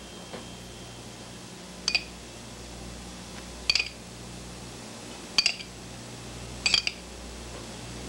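A metal spoon clinking against a small glass of olive oil, four short ringing chinks about every one and a half to two seconds as it dips out oil. A steady low hum runs underneath.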